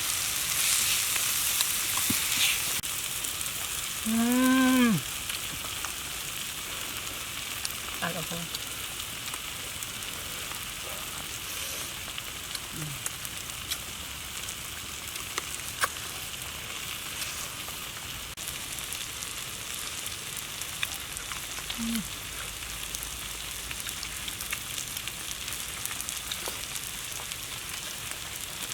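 Food frying in hot oil: a steady sizzling hiss with small crackles and pops. A short voiced exclamation rises and falls about four seconds in.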